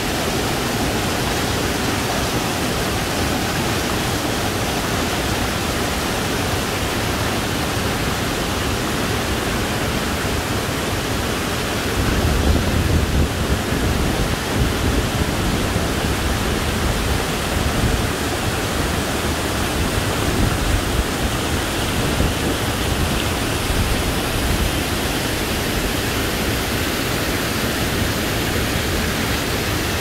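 Misol-Ha waterfall: falling water rushing in a steady, loud wash of noise. From about twelve seconds in, uneven low rumbling bumps come and go on top of it.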